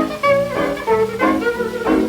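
1926 hot jazz dance band playing from a 78 rpm record: instrumental melody and chords over a steady dance beat.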